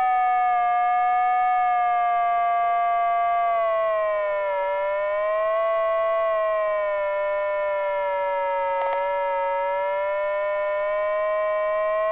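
Continuous buzzy electronic tone from a radio-control telemetry altimeter. It starts abruptly and slowly sinks, rises, sinks again and climbs near the end.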